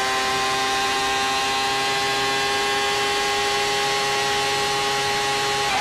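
Onboard sound of a 1995 Ferrari Formula One car's 3.0-litre V12 engine running at high revs under full throttle, a high-pitched, steady note. The note breaks briefly near the end.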